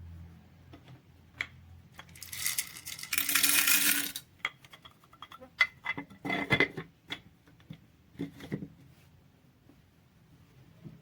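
Clicks, knocks and light clatter of hard objects being handled, with a loud hissing rush lasting about two seconds near the start and a shorter rattling burst about six seconds in.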